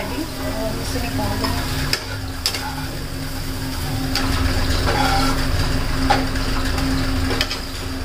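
Aloo bhujia frying in oil in a nonstick kadhai, with a steel spatula scraping and knocking against the pan as the potatoes are stirred and scooped out, a few sharp clinks among them. A steady hum runs underneath.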